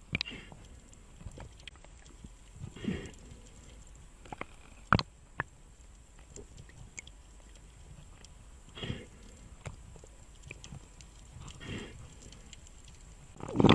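Underwater camera audio: a faint steady water hiss with scattered sharp clicks, the loudest about five seconds in, and a few short bursts of rushing noise near three, nine and twelve seconds.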